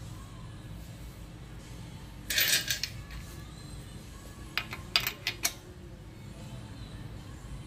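Metal clinking of lug nuts being handled and started onto the wheel studs: a short jingling rattle about two seconds in, then four quick sharp clicks around five seconds in.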